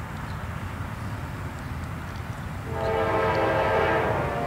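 Norfolk Southern locomotive air horn, out of sight, sounding one long chord starting about two and a half seconds in, over a steady low rumble.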